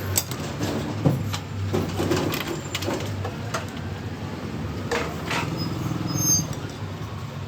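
Scattered clicks and knocks over a steady low hum.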